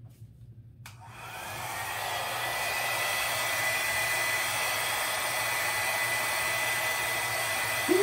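Handheld hair dryer switched on with a click about a second in. Its motor whine rises as it spins up, then settles into a steady rush of air, used to blow out freshly poured acrylic paint. A short low sound comes at the very end.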